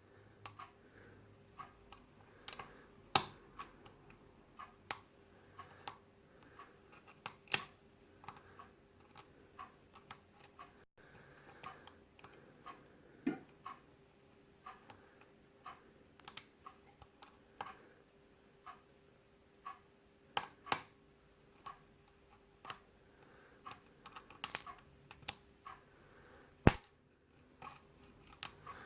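Lock pick and tension wrench working the pin stack of a Yale rim cylinder during single-pin picking: small, irregular metallic clicks and ticks as pins are lifted and set, with one sharper click near the end.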